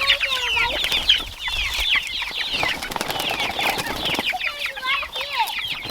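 A flock of young chickens peeping continuously, many short high chirps overlapping, with a few lower trilling calls among them.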